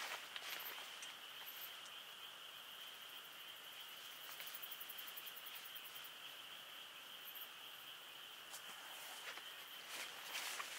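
Steady chorus of night insects, a continuous high chirring, with a few faint clicks and rustles near the end from handling the tent.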